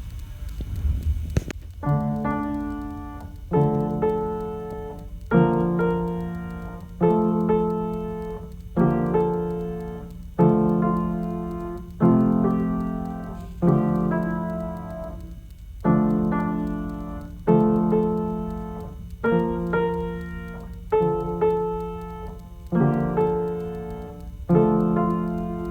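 Piano playing a slow run of chords, starting about a second and a half in. One chord is struck roughly every second and a half to two seconds and left to ring and fade before the next.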